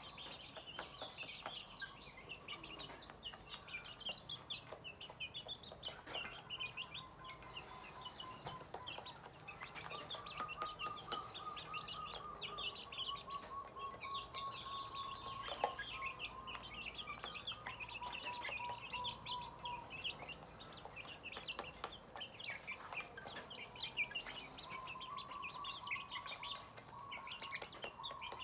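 Brood of young chicks peeping constantly in short, quick high cheeps while feeding with their hen, a lower trilled note held for several seconds at a time coming and going beneath them. Many sharp clicks of beaks pecking feed in a metal bowl are scattered throughout.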